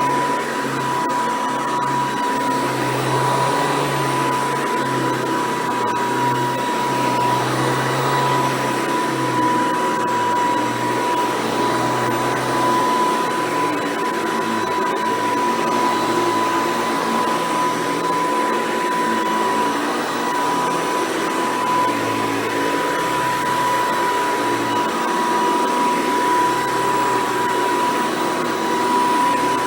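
Hoover Decade 800 upright vacuum cleaner running steadily, its motor giving a constant high whine.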